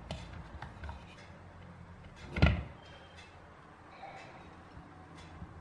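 Kitchen handling sounds: light clicks and knocks as plates and pepper halves are moved on a counter, with one loud thump about two and a half seconds in.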